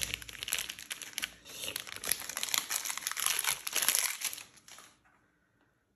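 Plastic wrapper of a Bounty coconut chocolate bar crinkling as it is peeled open by hand, a dense run of crackles that stops about five seconds in.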